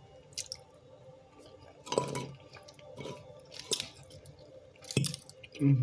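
Close-up eating sounds of someone chewing a salad with dressing: about five separate wet smacks and clicks of the mouth, with a short low hum near the end.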